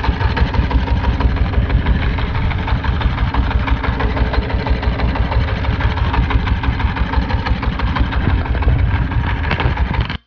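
A wooden fishing boat's engine running steadily at low revs, with a regular pulse about four times a second. It cuts off suddenly near the end.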